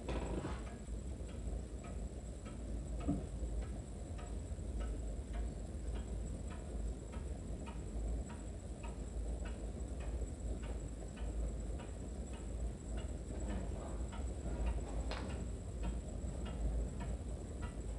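Antique wood-cased pendulum wall clock ticking steadily, about two ticks a second, with one louder click about fifteen seconds in.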